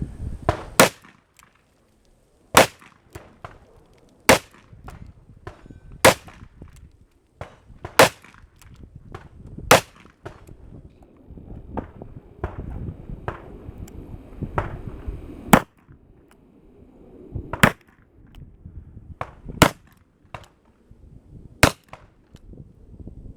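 1858 revolver firing single shots about two seconds apart: six shots, a pause of about six seconds, then four more.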